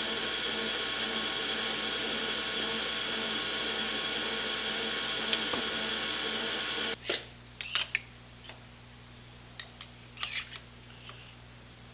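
Electric motor of a shop machine running steadily, with one sharp tick about five seconds in. It switches off abruptly about seven seconds in, followed by a few light metallic clinks and taps of tools or parts being handled.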